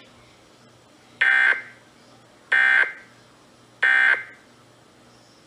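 Emergency Alert System end-of-message data signal: three short, loud, buzzy digital bursts about a second and a quarter apart, marking the end of the alert.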